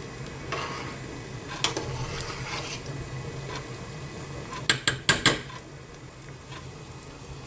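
Metal ladle stirring soup in a stainless steel pot, clinking against the pot now and then, with a quick run of about four sharp clinks around five seconds in. A low steady hum runs underneath.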